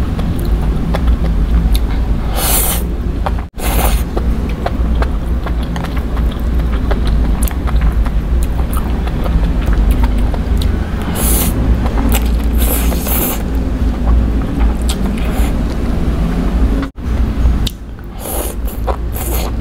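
Close-miked eating of instant noodles: several loud slurps of noodles sucked in off chopsticks, with wet chewing clicks in between, over a steady low rumble.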